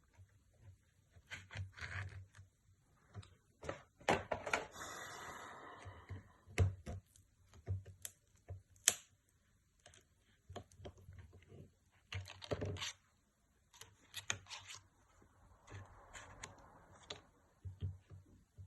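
Small repair tools clicking, tapping and scraping against a smartphone's frame and battery while the glued battery is pried out with a plastic card. There are irregular clicks throughout, with a longer scrape about four seconds in and another near the end.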